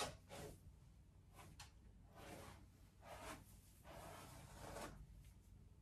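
Faint swishes of a hairbrush being drawn through hair, a handful of soft strokes about a second apart.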